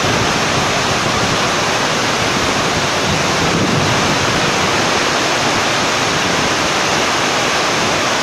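Heavy rain pouring in strong, shifting wind: a loud, steady rushing noise.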